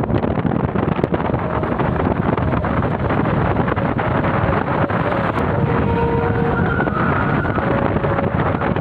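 Steady rush of wind and road noise while riding in a moving vehicle, with wind buffeting the microphone.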